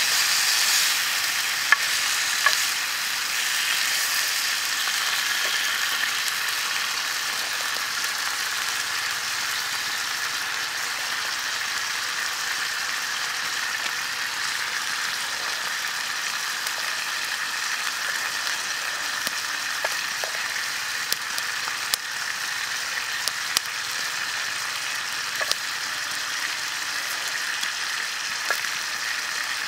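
Small octopus frying in hot oil in a pan, a steady sizzle that is loudest in the first few seconds and then settles, with occasional light clicks.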